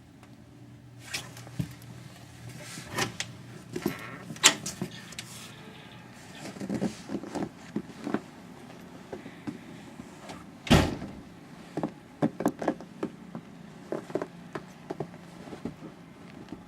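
A house door being handled and opened: a run of sharp, irregular clicks and knocks, with one loud thump about eleven seconds in.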